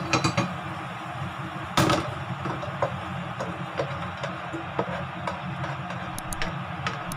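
Spatula knocking and scraping in a frying pan of sweet and sour pork as it is stirred, over a steady sizzle, with a ceramic dish clinking onto the stove grate at the start. One loud knock comes about two seconds in, then lighter taps.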